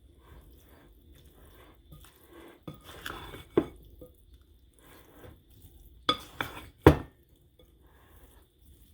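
A spoon stirring a chunky mixture of cubed chicken, peppers, onion and tomatoes in a bowl: soft wet stirring with a few sharp clinks of the spoon against the bowl, the loudest about seven seconds in.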